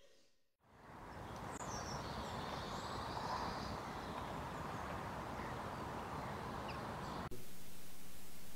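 Outdoor ambience fades in out of silence: a steady background noise with a few brief bird chirps. About seven seconds in, it cuts suddenly to quiet indoor room tone with a faint low hum.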